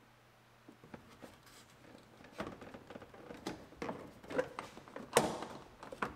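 Plastic C-pillar trim panel of a 2006 GMC Sierra cab being tugged and pried against a stuck retaining clip: irregular plastic clicks, knocks and rattles that get louder from about two seconds in, with the loudest sharp knock about five seconds in.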